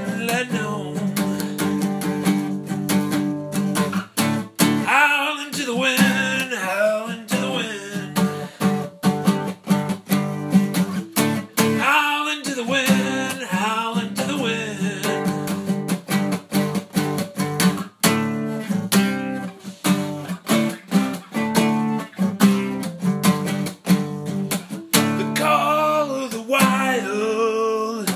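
Luna Celtic Horse acoustic guitar strummed and picked in a steady rock accompaniment, with many sharp strums. A voice sings wordless, drawn-out lines over it a few times.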